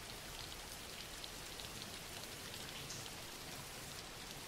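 Steady rain: a quiet, even hiss of falling rain with scattered light ticks of individual drops.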